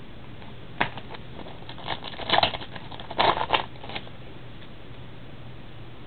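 Upper Deck Timeline baseball trading cards flipped through by hand: a run of short rustles and card snaps for about three seconds, loudest near the middle, then only steady background hiss.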